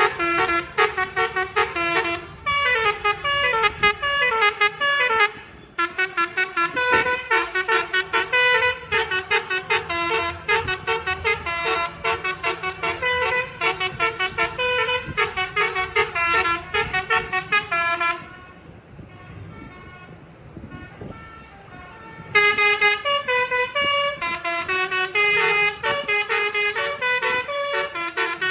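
Telolet basuri multi-tone bus horn playing fast melodic runs of short, bright notes, stepping up and down in pitch. The tune breaks off for about four seconds about two-thirds of the way through, then starts again.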